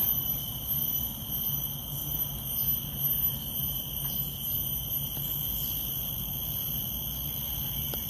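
Insects droning steadily, a high-pitched whine made of several held tones at once, with a faint low hum underneath.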